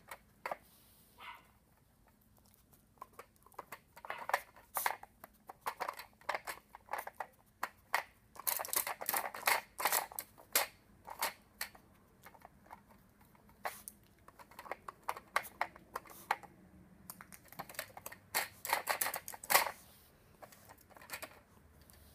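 A dog working a puzzle toy: irregular clicks and knocks as its pieces are nudged and shifted, coming in clusters, busiest about eight to eleven seconds in and again near twenty seconds.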